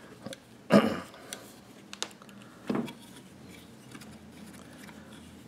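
Metal parts of a Type 81 rifle's trigger group being handled: a few faint clicks as the locking plate is pressed down over the hammer pin. There are two short louder sounds, one about a second in and one near the middle.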